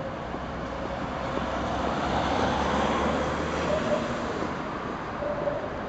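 Articulated Karosa city bus's diesel engine running as the bus creeps forward, over general street traffic noise. The sound swells for a couple of seconds in the middle, then eases.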